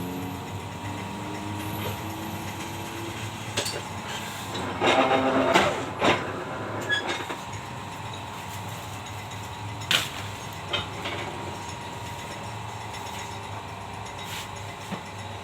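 Deki 201 sticker-cutting machine running: a steady hum with short rising motor whines in the first few seconds, a louder burst of mechanical noise about five seconds in, and sharp clicks, the loudest about ten seconds in.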